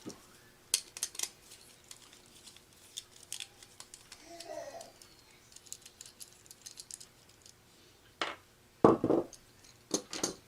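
Scattered small metallic clicks and snips of a hand wire stripper-crimper working on a wire and spade terminal, with a few sharper, louder snaps near the end.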